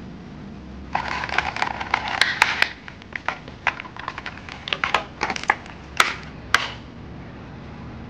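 Thin clear plastic fruit clamshell packaging crinkling and clicking as it is handled and fruit is lifted out: a dense crackle starting about a second in, then separate sharp clicks that stop shortly before the end.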